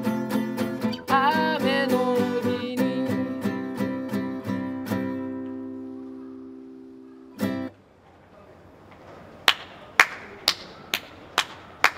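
Acoustic guitar music, strummed chords with a singing voice briefly near the start, dying away with one short last strum about halfway through. From about three quarters of the way in come sharp knocks at a steady rhythm of about two a second.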